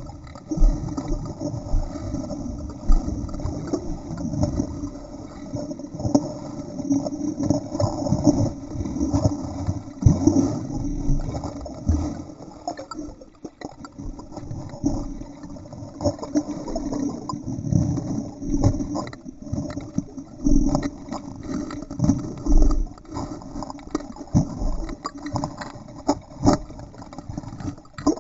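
Muffled water sloshing with irregular knocks as an Entlebucher Sennenhund paddles, heard underwater through a sealed camera housing.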